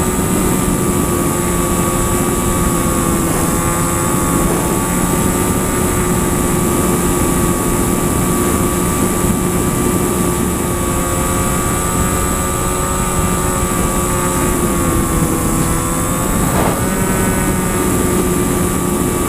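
Propeller airplane engine running steadily in flight: a loud, constant drone with several steady tones that waver slightly in pitch a few times.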